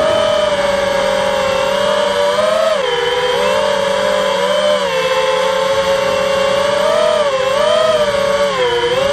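Four Emax RS2205-2300 brushless motors of an FPV quadcopter whining together, their pitch wavering as the throttle changes and dipping sharply about three seconds in and again near the end.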